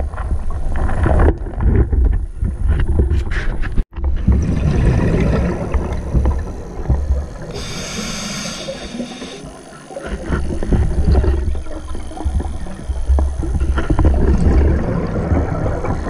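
Scuba diver's breathing heard underwater: the low, gurgling rumble of exhaled bubbles from the regulator, a short hiss of an inhale about eight seconds in, then bubbling again. The sound cuts out for an instant about four seconds in.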